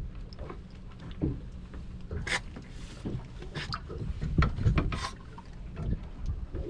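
Wind buffeting the microphone and water lapping at a small boat's hull, with scattered clicks and knocks from handling a landing net, and a few short splashy hisses around the middle.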